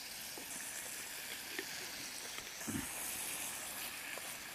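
Chicken, onions and sauce sizzling in a small frying pan over a camp stove, a steady hiss with a few faint clicks of the wooden spatula and a short low knock a little past the middle.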